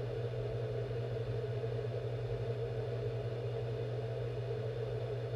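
Steady low hum with no other sound.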